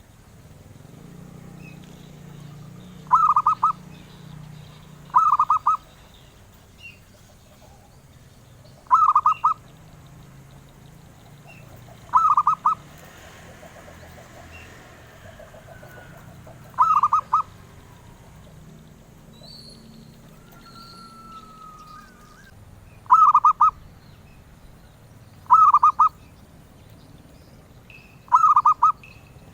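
Zebra dove (perkutut) cooing: eight short, stuttering coo phrases, each about half a second long, repeated every few seconds.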